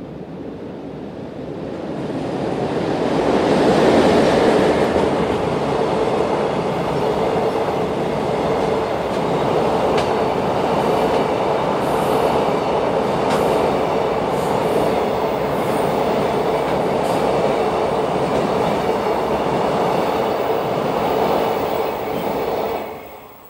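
JR Freight EF81 electric locomotive hauling a container freight train past. The sound builds to its loudest about four seconds in as the locomotive goes by, then holds as a long line of container wagons rolls over the rails, with a steady hum and a few clicks. It falls away sharply near the end.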